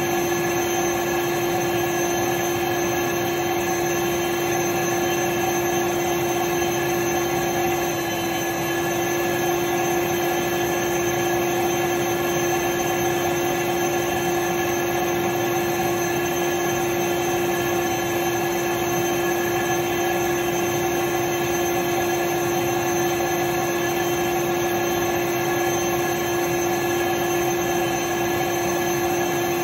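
Vacuum cleaner running steadily: an even rush of air under a constant motor hum with a strong steady whine.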